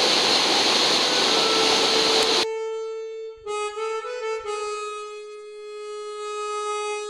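Loud, even rushing of a mountain torrent, cut off abruptly about two and a half seconds in. It gives way to slow harmonica music of long held notes.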